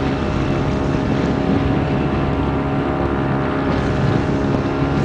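Boat motor running steadily: an even engine drone throughout.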